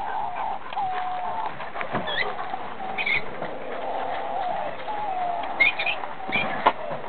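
Birds calling: drawn-out, mid-pitched notes that bend in pitch, with short high chirps several times.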